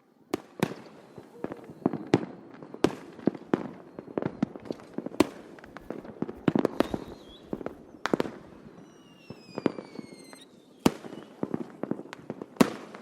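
Distant fireworks going off: a continuous run of irregular sharp bangs and pops, several a second at times, over a low rolling rumble. A falling whistle is heard for about a second and a half roughly nine seconds in.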